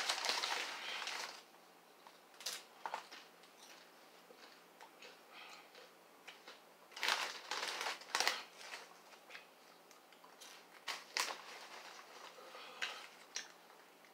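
Crinkling of a Lay's potato chip bag as a hand reaches in, loudest at the start and again about seven seconds in, with short sharp crunches between: potato chips being bitten and chewed.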